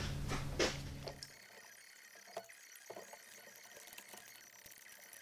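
Faint, scattered light clicks and knocks of parts being handled in a car's engine bay. A low hum underneath stops about a second and a half in.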